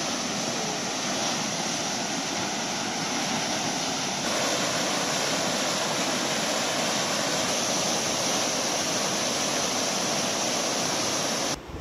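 Turia river running strongly: a steady rush of fast-flowing water, slightly louder after about four seconds.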